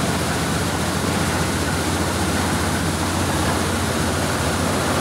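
High-pressure water spraying onto a car from the side blaster nozzles of a Magic Wand Nexus touch-free car wash: a steady hiss of spray over a steady low hum.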